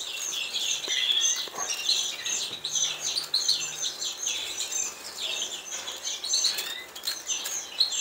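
Canaries chirping and twittering in a dense stream of short, high, overlapping calls.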